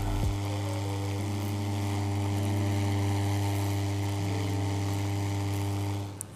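Steady electrical hum with a hiss above it, from mains current passing between two blade electrodes through boiling milk tea, picked up close to the pot. It drops away suddenly about six seconds in.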